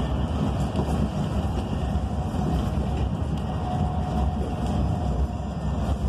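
Interior of a BYD K9M battery-electric bus on the move: steady road and tyre rumble, with a faint electric drive-motor whine coming in about halfway through.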